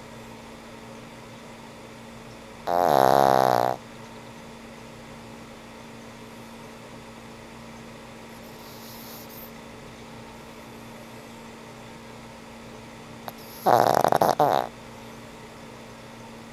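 Old pug snoring in its sleep: two loud snores of about a second each, some eleven seconds apart. The first falls in pitch; the second is fluttery and rattling.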